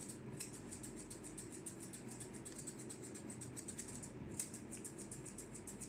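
Grooming scissors snipping a Shih Tzu's hair around the muzzle: a rapid, faint run of quick snips.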